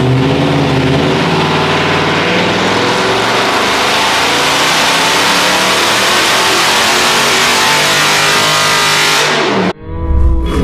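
Dodge Charger Scat Pack's 6.4-litre HEMI V8 and long-tube exhaust running hard under heavy throttle in one long sustained pull. It cuts off suddenly near the end.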